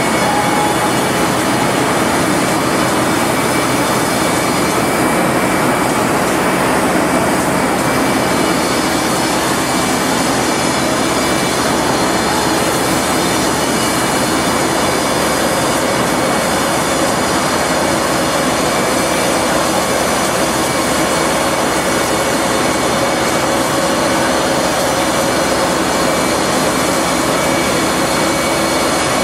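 Spray rig running with a loud, unbroken drone and hiss while pumping waterproofing membrane through hoses.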